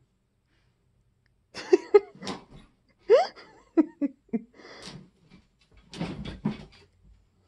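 Siberian husky vocalizing in play: a string of short grumbling yips and woos, one rising sharply in pitch about three seconds in, mixed with rustling of the blankets she is rolling in.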